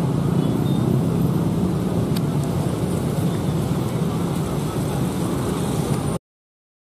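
Steady drone of many idling motorcycle engines in a crowd of traffic, with a few faint clicks. It cuts off abruptly about six seconds in.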